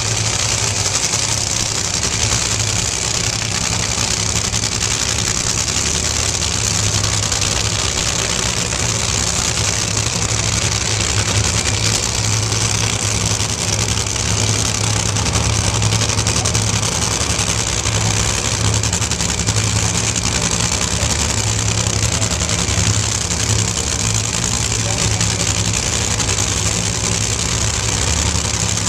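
Two nitro Funny Car engines idling loudly and steadily on the starting line after their burnouts, as the cars back up and stage.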